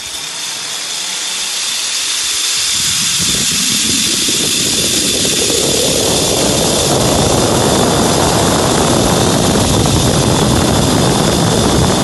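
Zipline trolley running fast along its steel cable, a rushing whirr with a faint steady high whine, growing louder as it picks up speed. Wind buffets the microphone more and more as the ride speeds up.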